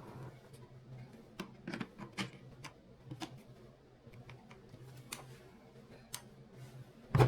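Scattered sharp clicks and taps of plastic parts being handled and pushed together, as a cordless pressure washer's foam bottle is fitted to its extension rod. A faint low hum runs underneath, and a louder knock comes near the end.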